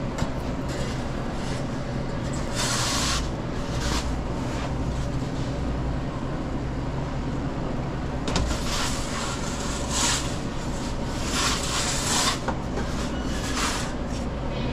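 Commercial pizza kitchen during service: a steady low hum of running kitchen equipment, with intermittent brief handling noises of pizza prep.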